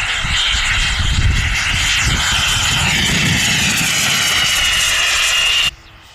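Radio-controlled model aircraft engine running with a steady high whine over a hiss, the pitch drifting slowly down. The sound cuts off abruptly near the end.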